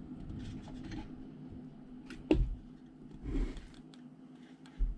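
Metal radio chassis and hand tools handled on a workbench: rustling and scraping, a sharp knock about two seconds in and a thump near the end, over a faint steady low hum.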